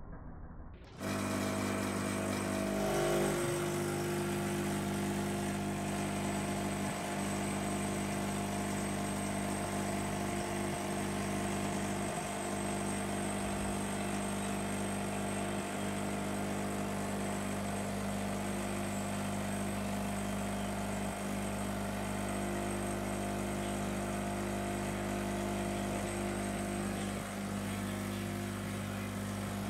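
Espresso machine pump humming steadily while it pushes a shot through the bottomless portafilter, switching on sharply about a second in.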